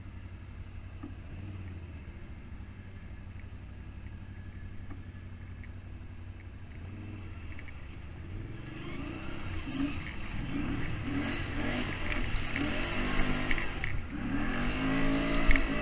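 Off-road vehicle engine running steadily and low, then from about halfway through it gets louder, its pitch rising and falling as it revs, loudest near the end.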